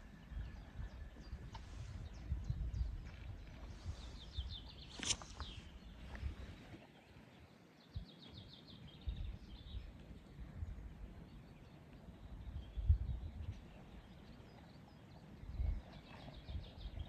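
Birds chirping in short rapid trills, one sharper call about five seconds in, over an uneven low rumble with occasional dull thuds.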